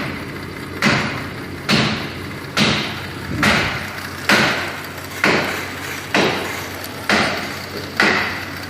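A regular series of sharp knocks, about one a second, nine in a row, each dying away quickly, over a steady low engine hum.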